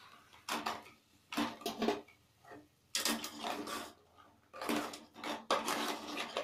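Steel ladle scraping and clinking against an aluminium cooking pot as a thick, wet masala paste is spooned in and stirred through crab pieces, in a series of short scrapes that come closer together in the second half.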